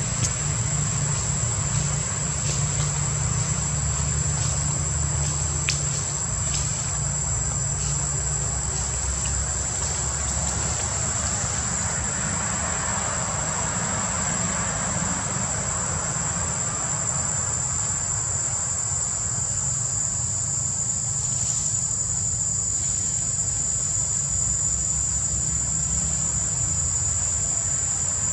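Steady, high-pitched drone of insects calling, one unbroken tone, over a low steady rumble.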